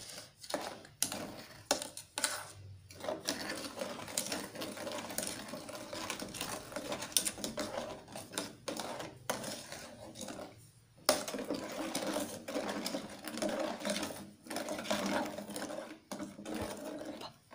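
Metal spoon stirring pudding powder into water in an aluminium saucepan: rapid, continuous scraping and clinking against the pan's bottom and sides, with a few brief pauses.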